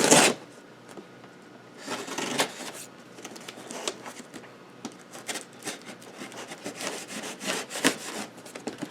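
Cardboard shipping box being opened, with repeated rubbing and scraping along the tape and flaps. It starts with a loud rustle, has another burst about two seconds in, then many short scrapes and clicks.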